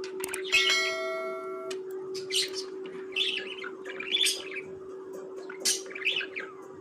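Budgerigars chirping and chattering in short separate calls. About half a second in, a held ringing tone lasts about a second. A steady hum runs underneath.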